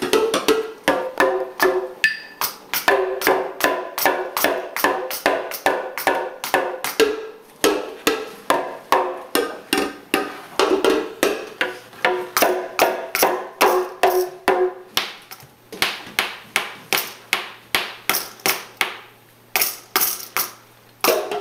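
A toddler beating a homemade toy drum set with wooden mallets, hitting plastic cups and a small toy tambourine in a quick, uneven string of knocks, about two or three a second. The beating thins out about three quarters of the way through, then picks up again near the end.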